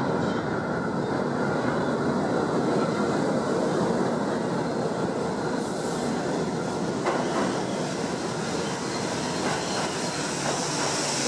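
New York City subway work train (an R32 car, a flat car and an R127 car) running through a subway station on the express track: a steady rumble of steel wheels on rail, with one sharp click about seven seconds in.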